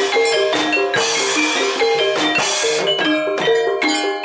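Javanese gamelan ensemble playing barongan dance accompaniment: mallet-struck keyed instruments repeat a short melodic figure over regular drum strokes.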